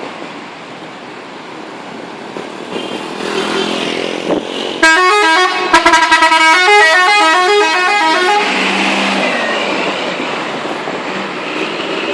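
Agra Mas bus's telolet horn playing a quick, stepping multi-note melody for about three and a half seconds, starting about five seconds in. Bus engine and road noise run under it, rising before the horn and holding steady after it.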